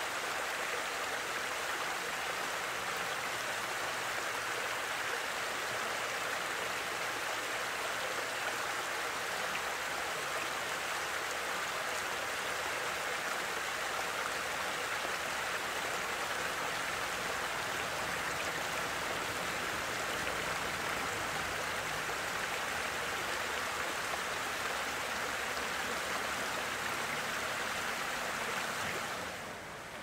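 Water rushing steadily over a small weir. The sound drops away about a second before the end.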